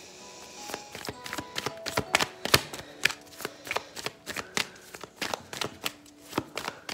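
A tarot deck being shuffled by hand, the cards clicking and slapping against each other in quick, irregular taps.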